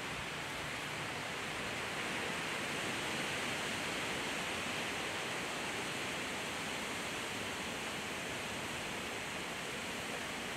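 Steady outdoor background hiss with no distinct events, swelling slightly a couple of seconds in.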